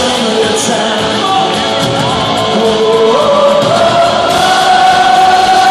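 Live rock band playing loudly, heard from among the audience in a concert hall, with long held melody notes sliding between pitches.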